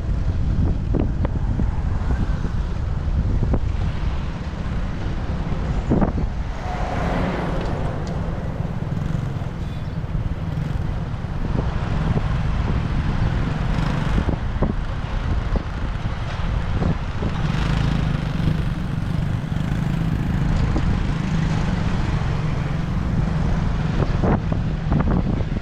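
Steady wind rumble on the microphone of a moving motorcycle, with the drone of its engine and the surrounding road traffic underneath and a few faint clicks.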